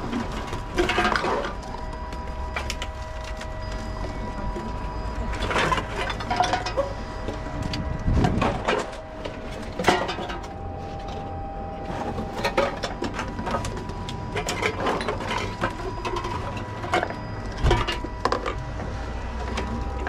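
Reverse vending machine for drink containers running with a steady whirring hum as cans and plastic bottles are fed in one after another. Repeated knocks and clatters come as each container goes through, with a heavier thump about eight seconds in.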